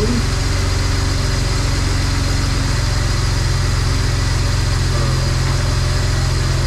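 BMW 335i's N54 twin-turbo straight-six idling steadily on freshly installed upgraded turbos, just after its first start.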